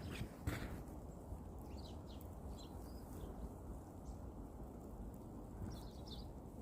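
Outdoor ambience: a steady low rumble with a few faint, short bird chirps, a couple of seconds in and again near the end.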